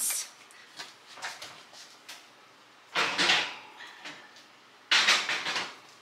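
Oven door opening and a metal muffin tin being slid onto the oven rack: two short clattering scrapes, about three seconds and five seconds in, with a few light knocks between.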